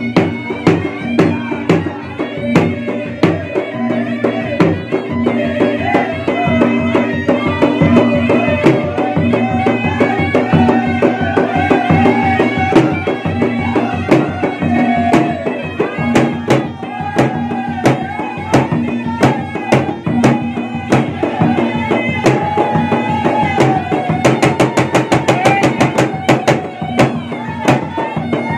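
Two Bugis-Makassar gendang, large double-headed barrel drums, beaten with a stick and the hand in a fast, even interlocking rhythm, breaking into a dense roll a few seconds before the end. Over the drums a small blown pipe plays a continuous, wavering melody.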